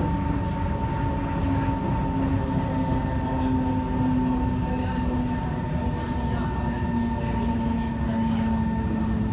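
Inside a Kawasaki–Nippon Sharyo C151 electric multiple unit running on the track: steady rumble of wheels and running gear, with the traction motor's whine slowly falling in pitch as the train slows, and a steady higher tone throughout.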